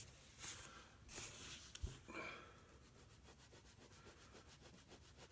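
Faint pen strokes scratching across paper: a few longer strokes and a sharp click near the middle, then quick, even hatching strokes about five a second.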